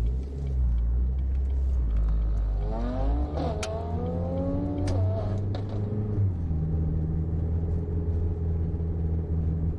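Motor vehicle engine running with a deep steady hum; its revs rise about two and a half seconds in, hold, and drop back about six seconds in.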